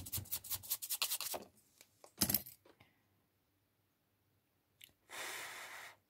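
Fast back-and-forth scrubbing strokes of a small bristle brush, about eight a second, for roughly a second and a half, then one short scrape. Near the end there is a sharp click followed by about a second of hiss.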